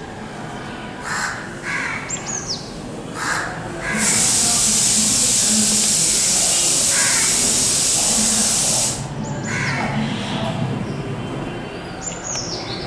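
Bird calls: a few short harsh calls in the first few seconds and a high, falling whistle twice. From about four seconds in, a loud steady high hiss runs for some five seconds and cuts off suddenly.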